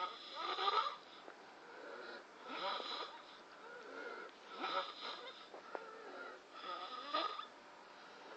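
A person snoring: four loud snores about two seconds apart, with a thin steady whistle on the breath between them.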